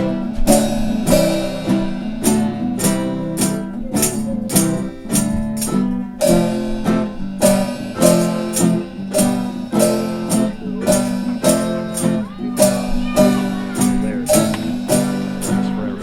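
Music: a strummed acoustic guitar playing a steady, rhythmic tune.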